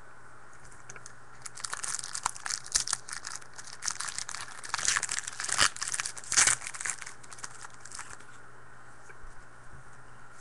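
A 2013 Panini Rookies & Stars trading-card pack wrapper being torn open and crinkled by hand. It is a run of sharp crackles and tearing, loudest about five to six and a half seconds in.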